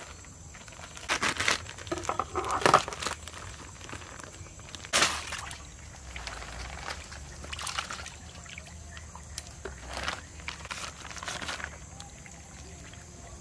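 Water being poured and sloshed in irregular bursts, with a few sharp knocks in between.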